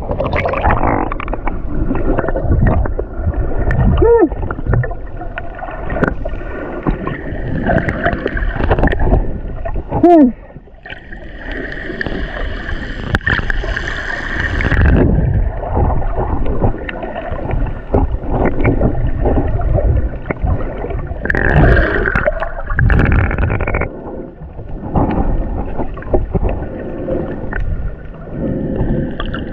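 Irregular water sloshing and gurgling from swimming at the surface while snorkeling, with surges of splashing from strokes and a couple of short falling gurgles.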